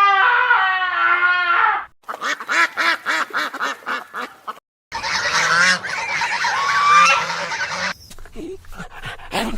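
Domestic fowl calling in three short back-to-back clips: a loud warbling call, then a quick run of repeated short honking calls, then many birds calling at once. The calls thin out near the end.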